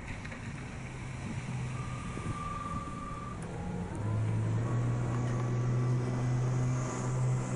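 EZ-L03 electric outboard motor (2.8 kW) running under way, a steady low hum that grows louder about four seconds in.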